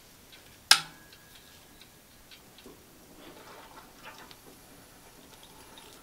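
A single sharp metallic clack about a second in, with a brief ring, from the lever mechanism of a 1957 Faema Marte lever espresso machine, followed by faint irregular ticks.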